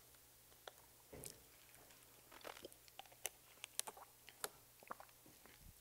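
Faint, scattered crackles and clicks of a plastic bottle being handled in the hands, against near-silent room tone.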